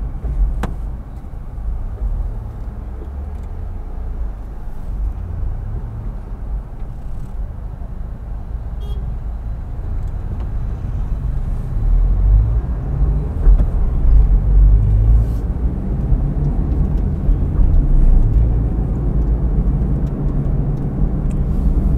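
Car engine and road noise heard from inside the moving car's cabin: a steady low rumble that grows louder about halfway through. There is a single click just after the start.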